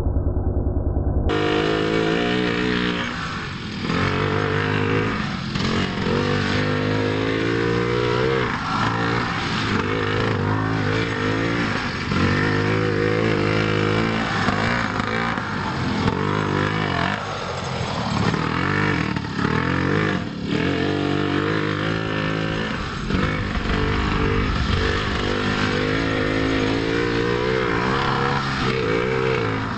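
Small gas engine of a Primal RC 1/5-scale monster truck, a two-stroke, running at a steady low speed and then, from about a second in, revving up and down over and over as the truck is driven.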